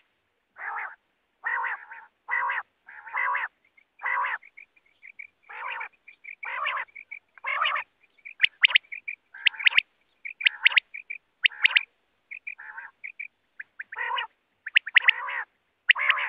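Common quail calling repeatedly: lower, fuller calls about a third of a second each, alternating with quick clusters of sharp, high notes in twos and threes, and soft short chirps in between.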